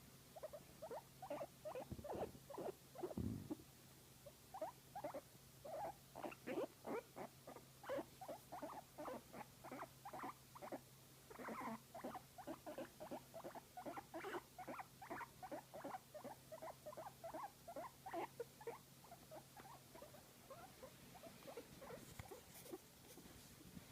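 Guinea pig making a long run of short, soft squeaky calls, about two to three a second, while being stroked.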